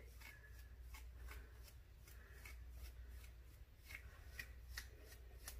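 Metal-toothed afro pick raking through short, coily natural hair: faint scratchy strokes, about two or three a second.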